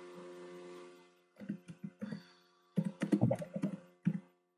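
Typing on a computer keyboard: irregular runs of keystroke clicks begin about a second and a half in, over a faint steady hum.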